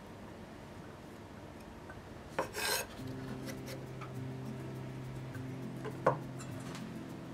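Kitchen knife blade scraping across a wooden cutting board as diced potato is swept up, a short scrape about two and a half seconds in. A single knock near the end as the knife is set down on the board.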